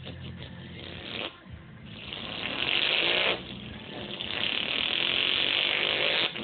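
A person imitating a truck engine with their mouth: two long noisy bursts, the first about a second and a half long and the second about two seconds, like an engine being started and revved.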